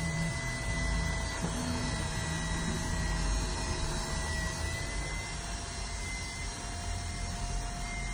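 Electric hair clippers fitted with a number two guard, running with a steady buzz as they cut hair.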